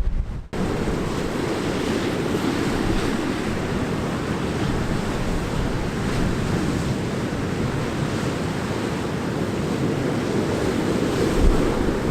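Rough, stormy sea surf breaking and washing over coastal rocks, a steady rush of water with wind mixed in. It comes in after a brief silence about half a second in.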